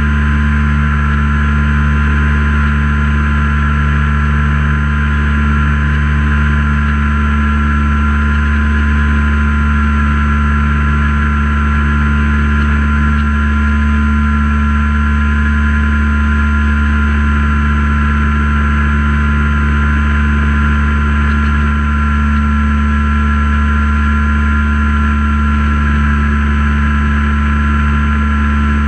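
Light single-engine plane's piston engine and propeller running steadily in level flight, a loud even drone with a few constant tones, heard with wind rush on the wing-mounted camera.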